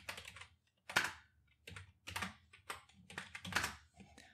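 Typing on a computer keyboard: quick, uneven bursts of keystroke clicks, the sharpest about a second in.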